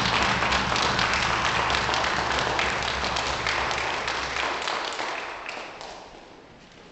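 Audience applauding, the clapping dying away over the last two seconds or so.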